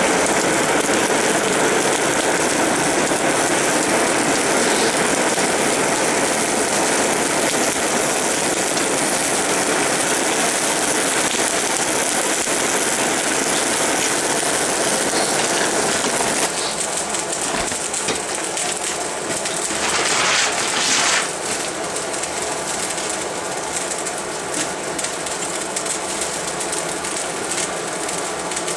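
Blacksmith's forge fire burning hard: a steady rushing noise full of crackling. About sixteen seconds in the rush eases and the fire's crackling and popping stands out.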